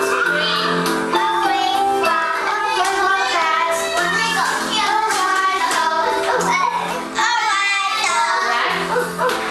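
Children singing a song together over instrumental backing music.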